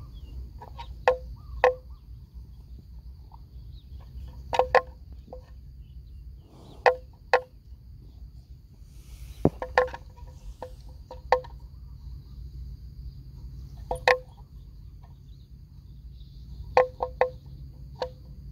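Water buffalo grazing: crisp snaps of grass being torn off, often two or three in quick succession, every second or two. A steady insect drone and a low hum run underneath.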